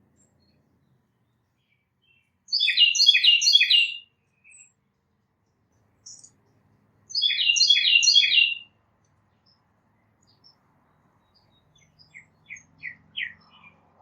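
A songbird singing: two short bursts of rapid, repeated high notes about four and a half seconds apart, then a few fainter single notes near the end.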